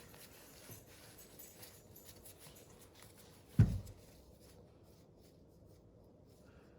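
Faint handling of loose metal sockets, with one sharp knock about three and a half seconds in as a socket is set down on a hard surface.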